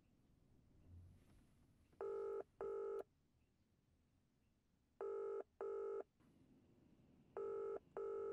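WhatsApp outgoing video-call ringing tone from a phone's speaker: three double beeps, evenly spaced, while the call waits to be answered.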